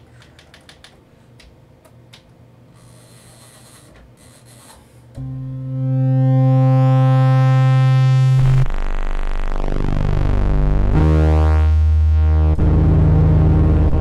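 A few light clicks of synthesizer panel buttons, then about five seconds in a Kurzweil PC3 plays a low pulse-width-modulation pad note, layered with a sine an octave down, brightening as its low-pass filter opens. Further notes come in near the middle and near the end, with the sweeping, shifting tone of the pulse-width modulation.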